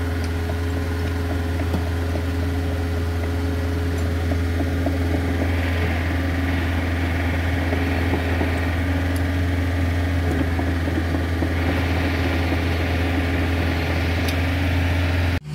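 Mini excavator diesel engine running steadily: a deep, even drone with a fainter steady hum above it.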